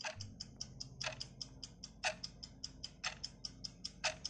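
Countdown-timer ticking sound effect: quick clock-like ticks, about five a second, with a louder tick on each whole second.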